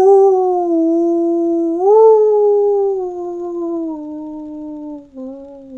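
A woman imitating a wolf howl with her voice through cupped hands: one long howl that swells upward in pitch about two seconds in, then slowly falls, with a brief break near the end.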